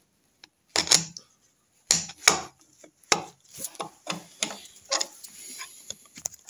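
Steel tyre levers knocking, clinking and scraping against a Norton Commando's camshaft sprocket and timing case as they are worked in behind the sprocket to lever it off the camshaft. The sound is a run of irregular sharp metal knocks, with two heavier ones about one and two seconds in.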